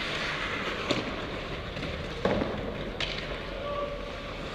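Ice hockey play on the rink: a steady hiss of skates on the ice, with three sharp clacks of sticks and puck, the loudest a little over two seconds in.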